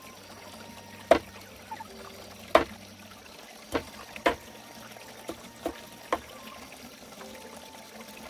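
Water trickling, with sharp knocks or clinks at irregular intervals, about seven in all, the loudest about a second in and around two and a half seconds.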